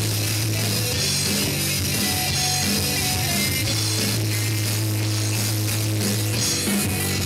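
Live rock band playing an instrumental passage: electric guitars over a drum kit with a steady beat and a sustained low note underneath.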